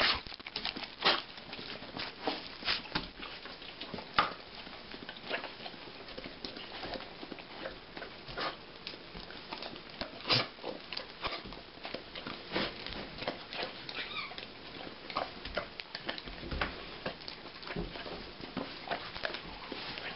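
Bloodhound puppy licking peanut butter off a spoon, its wet lip-smacks and tongue clicks coming in a fast, irregular run.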